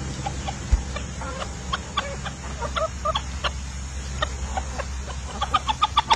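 Hens clucking in short notes while pecking at food in a plastic tray, with sharp tapping sounds mixed in; the clucks and taps come faster near the end.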